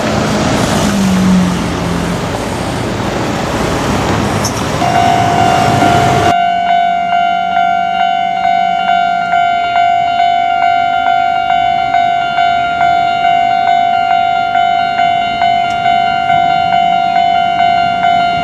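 Japanese railway level crossing's electronic warning bell ringing, a steady pitched ding repeating just under twice a second, which starts about five seconds in. Before that, loud noise of a passing vehicle or train with a low engine hum, which cuts off abruptly about six seconds in.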